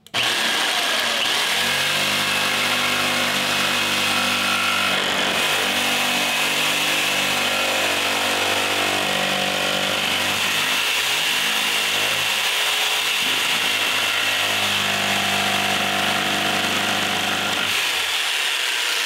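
Corded Ryobi jigsaw running steadily, its reciprocating blade cutting a curved line through the solid wood of a dresser's base.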